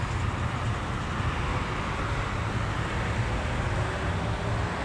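Steady background traffic noise, an even low rumble with no distinct events.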